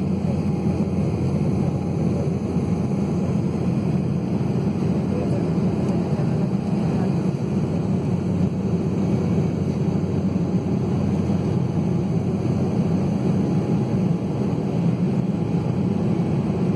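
Steady low roar of cabin noise inside an Embraer 190 airliner in flight, from its two General Electric CF34 turbofan engines heard through the fuselage.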